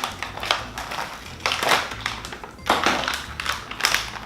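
Plastic toy packaging rustling and crinkling in irregular handling sounds as a doll is unboxed, over background music.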